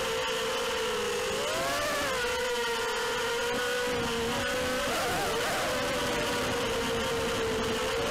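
ZMR180 racing quadcopter's brushless motors and propellers whining in flight, picked up by the onboard camera. The pitch dips and climbs back about two seconds in and wavers around five seconds in.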